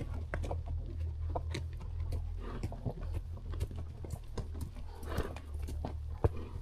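Horse hooves clopping on a dirt and rock trail, in irregular knocks and clicks, over a steady low rumble.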